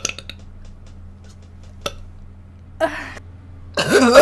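A person burping: a short throaty sound a little under three seconds in, then a loud burp near the end whose pitch bends as it goes.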